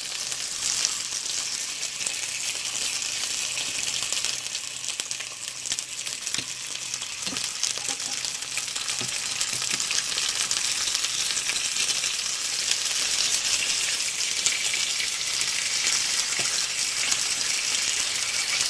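Chicken skin frying in a hot pan, sizzling steadily in the fat rendering out of it, growing a little louder in the second half, with a few faint taps around the middle.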